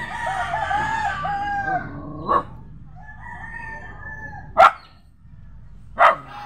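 A rooster crows a long crow, then another crows more faintly, while a dog barks in short, loud single barks three times.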